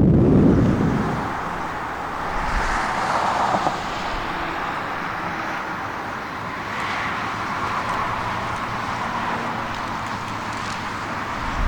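Steady road noise of a moving vehicle, after a loud low rumble of wind on the microphone that dies away about a second in.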